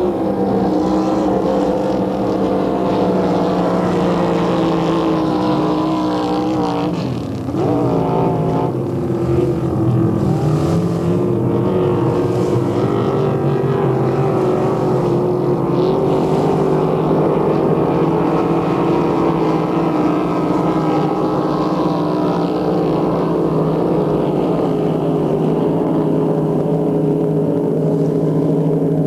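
Motorboat engine running steadily at speed. About seven seconds in, the engine note briefly drops and wavers, then picks up again and holds steady.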